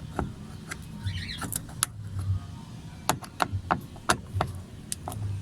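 Irregular sharp clicks and knocks of hand tools and fasteners against the door's metal and plastic parts as a car door is put back together.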